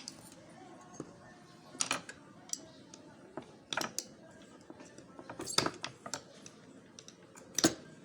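Scattered sharp clicks and taps of small metal parts and tools as a hard disk drive is taken apart by hand, about half a dozen distinct knocks with the loudest near the end.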